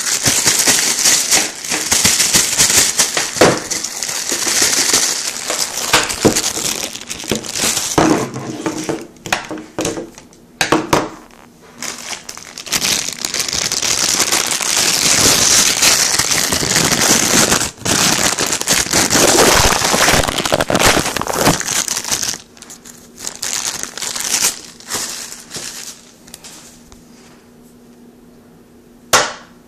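Plastic packaging crinkling and crumpling as it is handled and pulled off a laptop power cord. It is loud and nearly continuous for about twenty seconds, then comes only now and then and more quietly.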